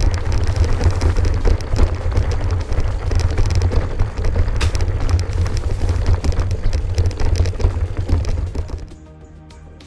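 Wind buffeting an action camera's microphone, with the crackle and rattle of a mountain e-bike rolling over stony, grassy ground. The noise cuts off sharply about nine seconds in, leaving faint music.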